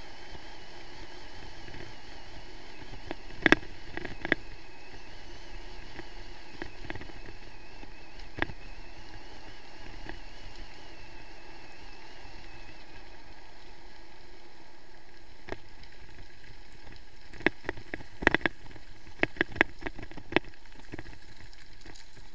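Mountain bike rolling fast down a gravel track: steady rolling noise, with sharp knocks and rattles as it runs over bumps, a few in the first seconds and a quick cluster near the end.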